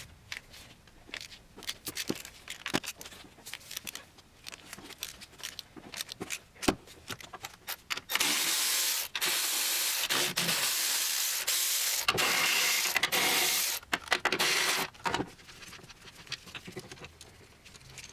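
Cordless ratchet running in several bursts for about six seconds, spinning out the 15 mm transmission mount bolts, with scattered clicks and knocks of the socket and tools before and after.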